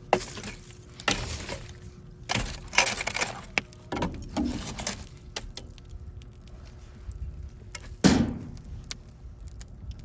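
Several irregular knocks, scrapes and crashes, the loudest a sharp hit about eight seconds in.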